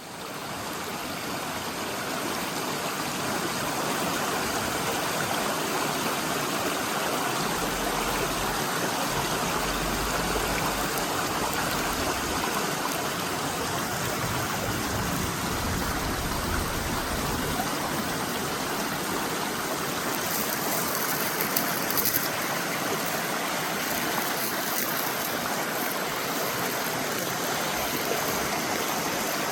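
Valley stream running: a steady rush of flowing water, fading in over the first few seconds.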